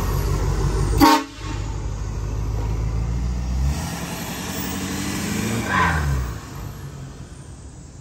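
Lifted Ford F450 pickup's diesel engine running, with a brief loud blast about a second in. The engine revs up in pitch from about four seconds, peaks near six, then fades as the truck pulls away.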